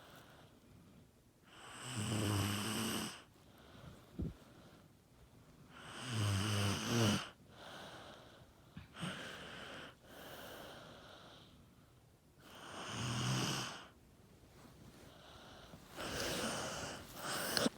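A young child snoring in her sleep: four loud, rumbling snores about four seconds apart, with quieter breaths in between.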